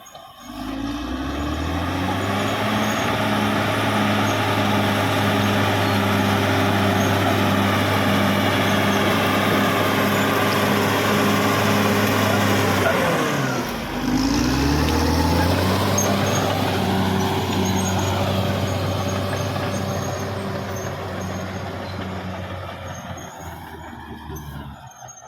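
Caterpillar D6R XL bulldozer's diesel engine running steadily at working speed. Its engine speed drops briefly and picks back up about halfway through, and the sound fades away near the end.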